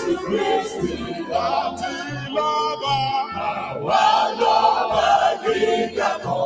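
Church praise team singing a worship song together into microphones, over a low bass line that steps from note to note.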